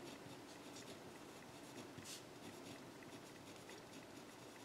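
Faint scratching of a pencil writing on paper, in short strokes, with one louder stroke about two seconds in.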